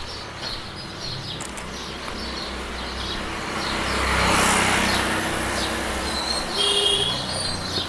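Birds chirping, with a vehicle passing along the wet street: a broad swell of noise that builds to its peak about four seconds in and then fades.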